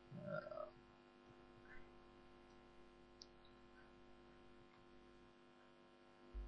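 Near silence: a steady, faint electrical hum on the recording, with a brief faint blip about half a second in.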